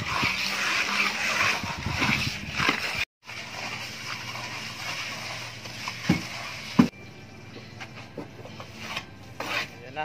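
Plastering trowel scraping and rubbing across fresh cement plaster on a block wall, in stretches broken by abrupt cuts, about three seconds in and again near seven seconds, with a few knocks in the quieter last part.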